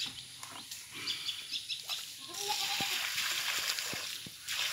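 A short animal call about halfway through, over a steady hiss and scattered light clicks.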